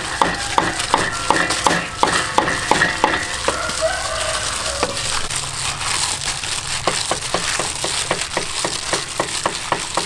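Minced pork being squeezed and mixed by a hand in a plastic glove in a stainless steel bowl: wet squishing and slapping strokes, about three a second.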